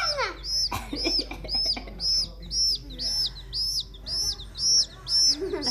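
Baby chick peeping over and over, a short high arched peep about twice a second.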